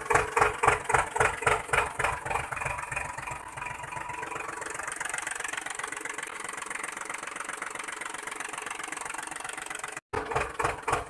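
Tractor engine chugging in an even putt-putt, about four to five beats a second, then settling into a steadier running drone from about three and a half seconds in. It cuts out for a moment near the end and the chugging starts again.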